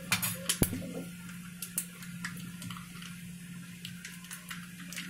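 Garlic, cumin and curry leaves frying in hot oil in a small pan, sizzling with scattered pops and crackles over a steady low hum. The garlic is being browned for a tadka.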